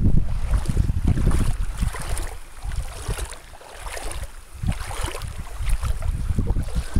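Wind buffeting the microphone, with shallow seawater sloshing and splashing in irregular bursts as someone wades and puts a hand into the water.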